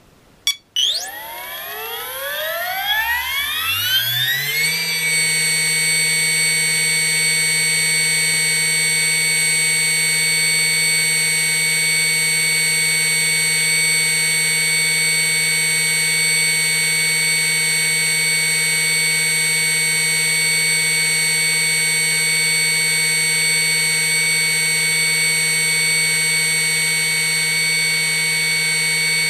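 O.S. brushless electric motor, running without a propeller, starting up on its timer: a sharp click about half a second in, then its whine rises in pitch over about four seconds as it spools up, then holds one steady high whine.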